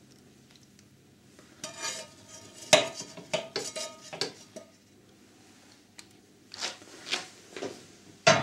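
Metal utensil clinking and scraping against dishes as pieces of fried salmon are lifted onto a serving dish: scattered sharp clinks, some with a short ring, the loudest about three seconds in and a few more near the end.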